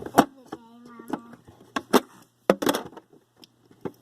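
Toy safe being handled and fiddled with: a handful of sharp clicks and knocks, irregularly spaced.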